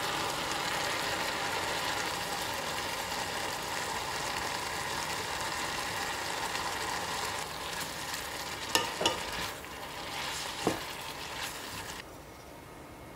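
Julienned radish sizzling in a small saucepan as it cooks in a little water, with a steady hiss. A few sharp clicks come about nine and eleven seconds in.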